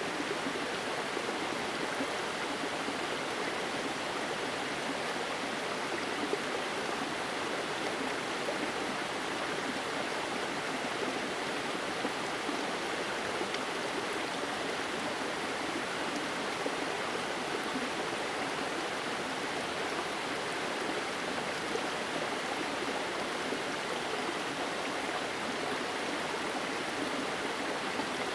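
Steady rush of water from a waterfall spilling in thin threads over a rock face and the stream below it, an even, unbroken sound.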